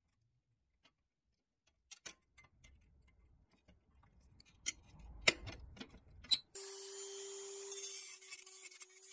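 Scattered sharp metal clicks and taps as pliers work at the rusty steel wheel hub of a toy truck. About six and a half seconds in, a small rotary tool starts with a steady whine and a high hiss as it grinds at the axle end.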